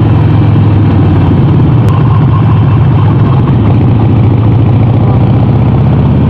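Harley-Davidson Sportster 48's air-cooled V-twin engine running steadily at low revs, loud and close.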